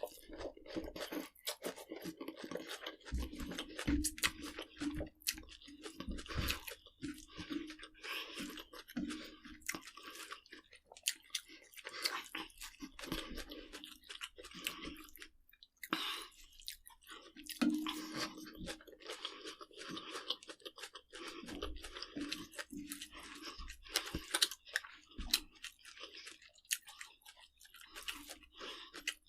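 A person chewing crunchy food, with dense, irregular crunches.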